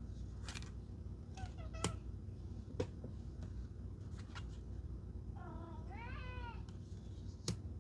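A house cat meowing twice: a short meow about a second and a half in and a longer one about five and a half seconds in. A few sharp taps of tarot cards laid down on the table come in between.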